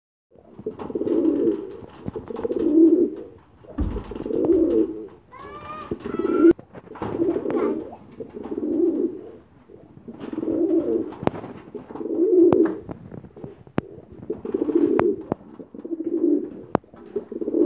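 Shirazi pigeons cooing over and over, one low rolling coo about every one and a half seconds. A brief run of higher rising chirps comes about six seconds in, and a few sharp clicks fall in the second half.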